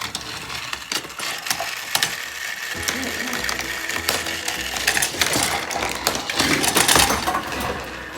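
Battery-powered Trackmaster toy train and the plastic track set's mechanism running, with fast clicking and rattling and a faint steady motor whine. A louder burst of clattering comes about seven seconds in.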